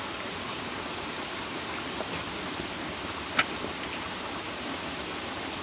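A steady hiss of background noise, with one sharp click about three and a half seconds in.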